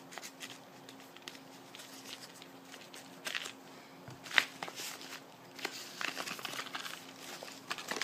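Paper packaging handled and unfolded by hand: soft rustling and crinkling with scattered clicks, and one sharp click about four and a half seconds in.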